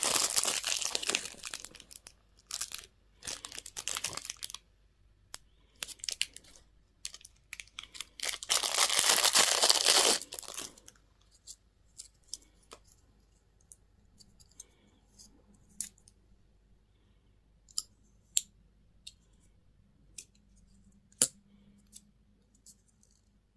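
Candy packaging being crinkled and torn open in three loud bursts over the first ten seconds or so, then a string of small, sparse clicks and taps.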